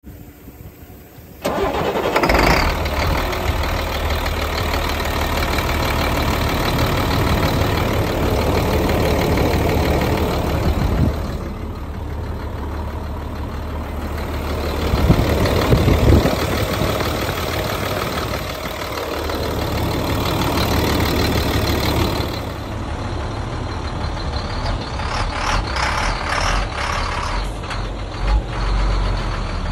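The Caterpillar diesel engine of a 2002 GMC C8500 dump truck starts up suddenly about a second and a half in, then idles steadily.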